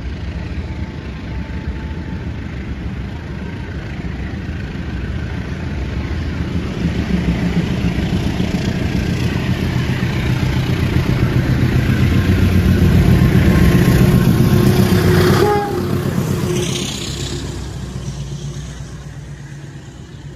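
Diesel locomotive of the Taksaka express approaching head-on through the station, its engine rumble growing louder as it nears. About two-thirds of the way through the sound breaks off to a quieter, fading run of an electric commuter train passing along the platform.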